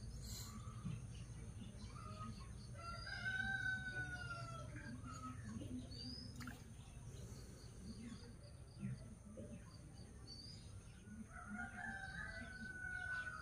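A rooster crowing faintly, one long call a few seconds in and another starting near the end, with small birds chirping in short high notes.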